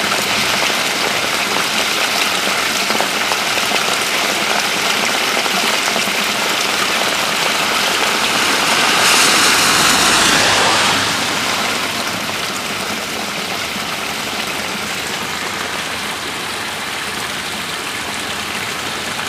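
Flash-flood runoff pouring through a storm sewer grate and falling into the overloaded drain, a steady rushing of water. It swells louder about halfway through, then softens.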